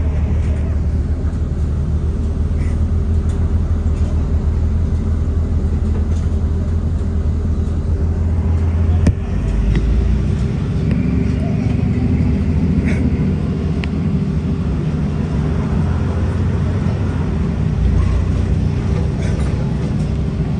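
Car driving through city traffic: a steady low engine and road rumble, whose low end changes about nine seconds in.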